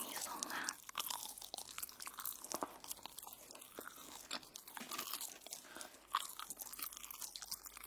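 Close-miked crunching and chewing of crisp toast: irregular, crackly crunches one after another.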